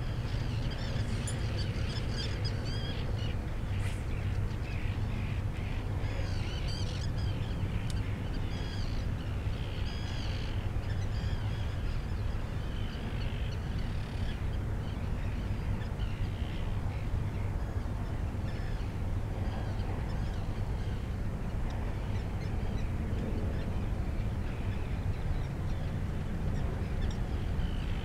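Birds calling over open water: many short calls, thick in the first half and thinning out later, over a steady low rumble.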